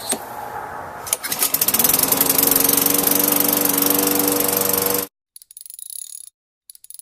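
Lawn mower engine starting about a second in, its pitch rising as it comes up to speed, then running steadily until it cuts off suddenly. It now starts and runs after rust was cleaned from its electrical connectors.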